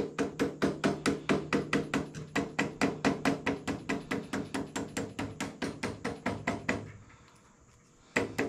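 Rapid hammer blows on steel, about six a second, driving the fork stem nut of a Harley-Davidson springer front end loose. They stop about seven seconds in and start again just before the end.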